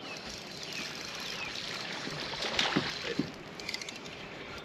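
Lake water lapping and trickling against the bass boat's hull, with a louder splashy burst about two and a half seconds in.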